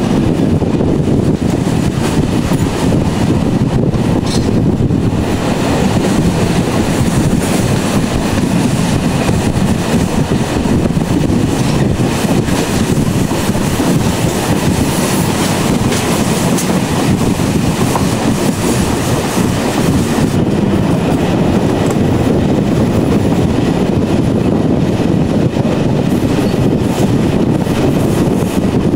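Train running on the rails: a loud, steady rumble.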